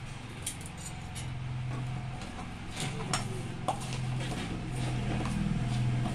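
Semolina being mixed by hand in a stainless steel bowl: scattered light clinks of bangles and rings against the metal bowl. Under it, a low steady hum grows louder toward the end.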